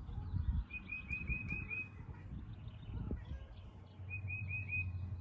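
A bird calling in quick runs of short, evenly repeated chirps, about five a second: one run of six about a second in and a run of four near the end. A low rumble runs underneath.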